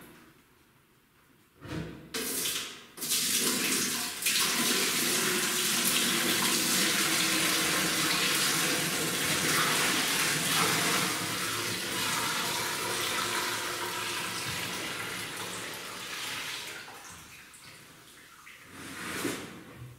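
Liquid poured from a large stainless steel pot into a stainless steel pot in a steel sink: a couple of short splashes, then a steady gushing pour from about four seconds in that slowly tails off as the pot empties, dying away near the end.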